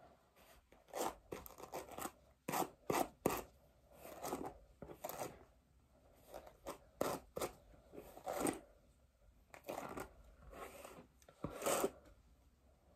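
A hairbrush dragged through long, tangled hair, stroke after stroke: short scratchy swishes, unevenly spaced at roughly one a second, as the hair is brushed out.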